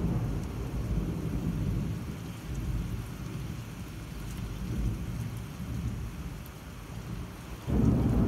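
Heavy summer downpour with thunder: steady rain hissing and pattering on the window glass, while a low thunder rumble dies away over the first couple of seconds. A new loud peal of thunder breaks in suddenly near the end.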